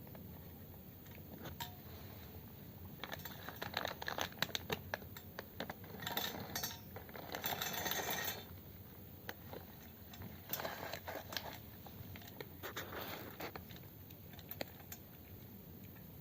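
Cat eating from a dish: a run of small crunching clicks and clinks, busiest from about three to nine seconds in, then sparser.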